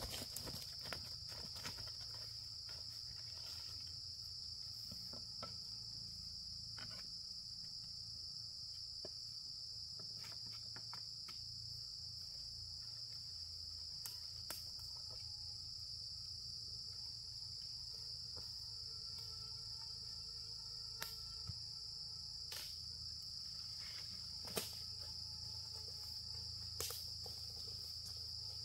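Insects chirring in one unbroken high-pitched drone, with a few sharp clicks or knocks scattered through.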